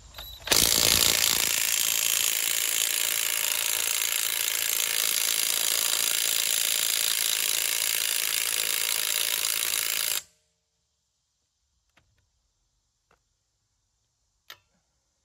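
Dayplus 21 V cordless 1/2-inch impact wrench hammering on a car's lug nut for about ten seconds, then stopping suddenly; the nut does not break loose. A few faint clicks follow.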